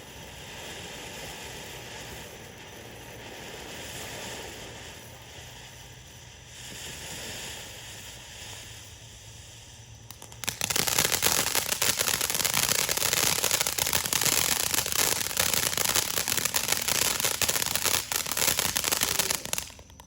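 A ground firework fountain sprays sparks. It starts with a softer hiss that swells and fades, then about halfway through breaks into a loud, dense crackling hiss for about nine seconds, which stops abruptly.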